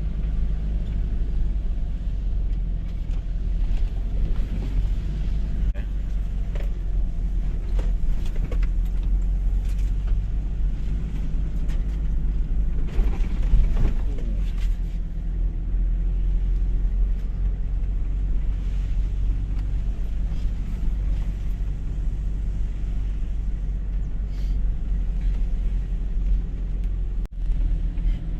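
Two-wheel-drive Toyota HiLux being driven on a dirt track: a steady engine drone and low road rumble, swelling briefly about halfway through.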